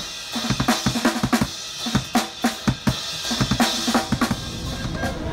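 A street busker playing an acoustic drum kit, with quick strikes on the snare and bass drum under ringing cymbals.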